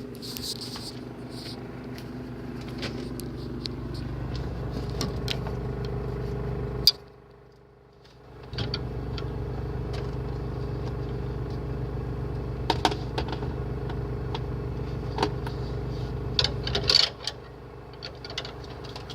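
Refrigerator motor hum heard from inside the fridge, steady and low. It cuts out briefly about seven seconds in, then starts again, with scattered sharp clicks and ticks.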